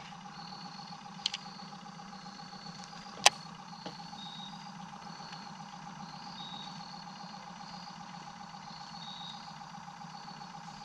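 A small motor on the fishing boat running steadily, a low hum with a faint steady whine, with one sharp click about three seconds in.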